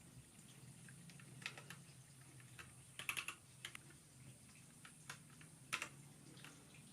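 Faint keystrokes on a ZIFRIEND ZA68 mechanical keyboard with factory-lubed linear TNT switches: scattered clicks, a quick run of several about halfway through and one sharper stroke near the end.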